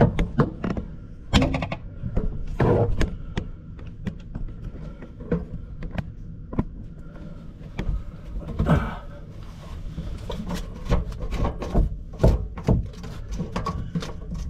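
Irregular knocks, clunks and clicks from hands working on the fittings and faucet supply hose under a kitchen sink, with a quicker run of sharp clicks in the last few seconds.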